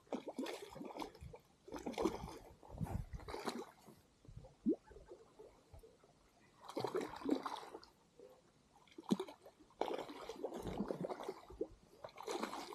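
Hooked fish splashing at the water's surface in irregular bursts as it is played on a spinning rod close to the bank.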